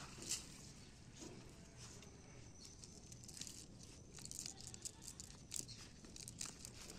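Wet cast net being dragged up and gathered by hand on a grass bank: a brief splash of water just after the start, then faint rustling, dripping and scattered small clicks of the net mesh.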